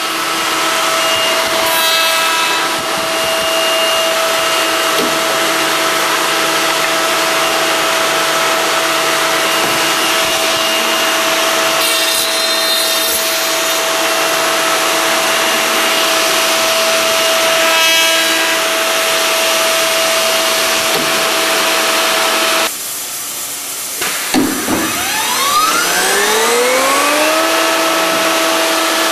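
High-frequency spindles of a CNC woodworking machining center running with a steady whine and hiss while machining a wooden face-frame stile. Near the end the sound breaks off abruptly, and then a spindle spins up with a rising whine that levels off.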